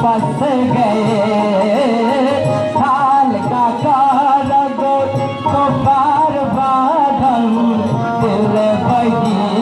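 A boy singing a melody into a microphone, accompanied by an electronic keyboard and hand drums.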